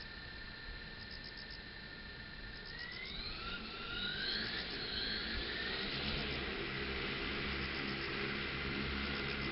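A 10-litre agricultural spraying drone's motors whine steadily, then rise in pitch about three seconds in and spool up to a louder, steady rush of propellers at flight power. Crickets chirp faintly throughout.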